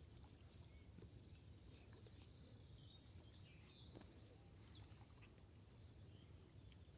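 Near silence: faint outdoor ambience with a low rumble and a few faint, short bird chirps.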